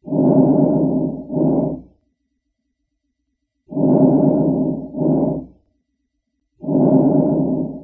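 Wheezing lung sounds: three breaths, each a longer musical wheeze followed by a shorter one, with a pause of about a second and a half between breaths. Wheezing is the sign of air forced through narrowed airways.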